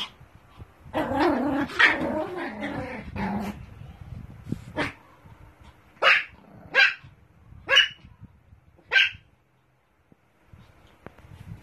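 Pomeranian yapping: a rapid run of yaps about a second in, then a few single high, sharp barks spaced about a second apart.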